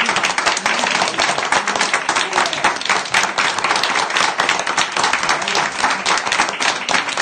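A small group of people applauding, many hands clapping densely and without a break.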